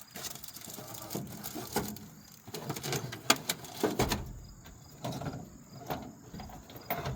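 Items being rummaged through and lifted out of a truck toolbox: irregular clinks, knocks and rustling, with one sharp clack about three seconds in.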